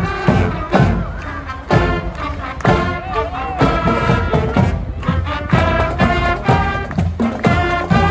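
Marching band playing: horns and saxophones carry a tune over a steady drum beat, with bass drum thuds on the beat.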